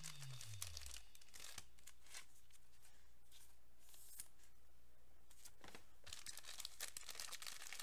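Faint tearing and crinkling of a foil trading-card pack wrapper being ripped open, with light rustles and clicks of cards being handled.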